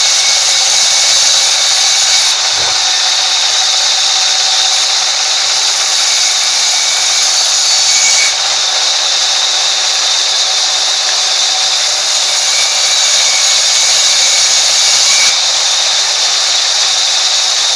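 Sawmill band saw running and ripping timber as planks are fed through the blade: a loud, steady, high-pitched rushing noise. The sound shifts abruptly a few times.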